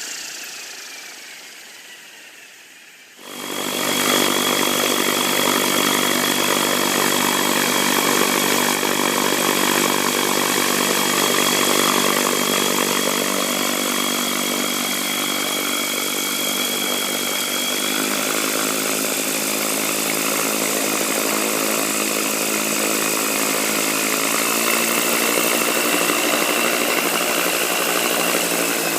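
Protos 500 Stretch machine's belt drive running down, then starting up again about three seconds in and running steadily, with a steady high-pitched squeal over its running sound. The squeal persists although the belt and drive parts have been checked and the counter bearing loosened.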